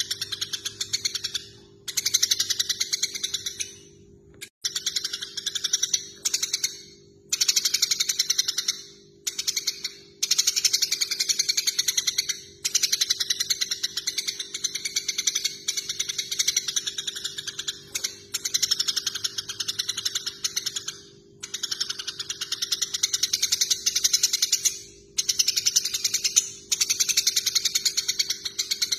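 Eurasian tree sparrows in a squabble, chattering in fast, harsh chirp trains that come in bursts of a second or two with brief pauses between. A steady low hum runs underneath.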